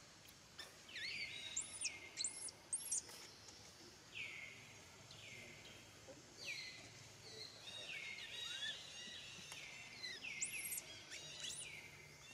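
Baby macaque screaming in a string of high-pitched cries, roughly one a second, each rising then falling, starting about a second in: distress calls of a hungry infant away from its mother.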